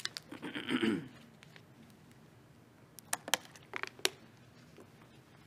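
A man clearing his throat once, then a handful of small sharp clicks and taps as his hands handle something small at the pulpit.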